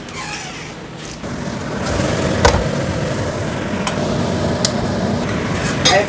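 Food sizzling in a frying pan as it is stirred, growing louder about a second in, with a few sharp clicks of a utensil against the pan.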